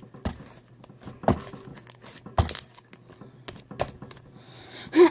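Slime being squished and stretched by hand, giving irregular sticky crackles and sharp pops. A voice starts humming right at the end.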